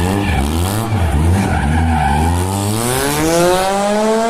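Car engine revving in quick up-and-down blips, then, about two seconds in, the revs climbing steadily in one long rise in pitch.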